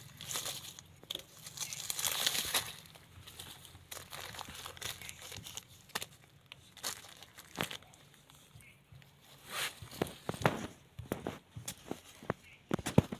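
A small metal hand tool scraping and digging into dry, stony soil and leaf litter, in irregular scrapes and crunches with sharp clicks. The longest stretch of scraping comes about two seconds in, and scattered clicks follow.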